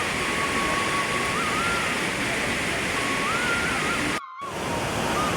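Steady rushing of a stream or waterfall, with a thin pitched tone that steps up and down over it. The sound cuts out for a moment about four seconds in.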